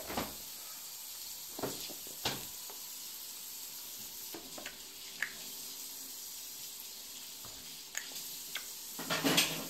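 A toddler's lip smacks and small mouth clicks while eating cashew butter off a metal spoon, scattered over a steady hiss. A louder cluster of sounds comes near the end.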